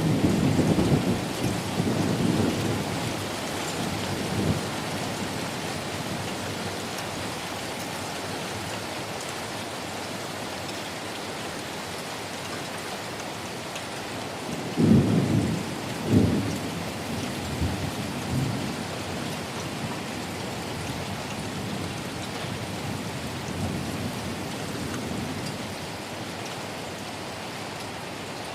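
Heavy rain falling steadily, with thunder rumbling twice: a loud peal right at the start that rolls off over several seconds, and a second double peal about fifteen seconds in that fades over the next few seconds.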